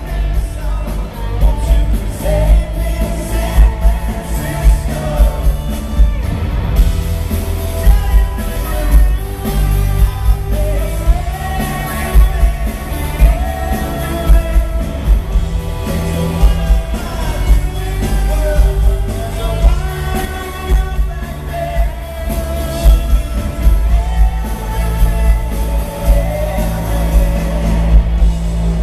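Pop-rock band playing live: a male lead vocalist singing over electric guitars, bass and a steady drum beat.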